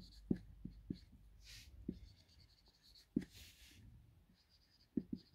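Marker pen writing on a whiteboard: faint, irregular taps of the tip and a few short scratchy strokes.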